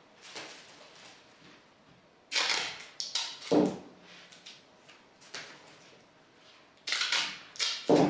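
Silver duct tape pulled off the roll and torn into short pieces by hand: short ripping sounds in two groups, about two to four seconds in and again about seven to eight seconds in.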